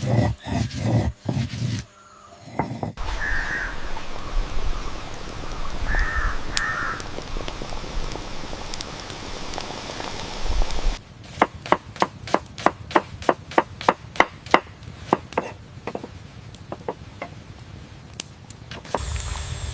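A steady rushing noise with a few short chirps, then a fast, even run of sharp knocks, about three a second, for several seconds past the middle, like chopping on a wooden board.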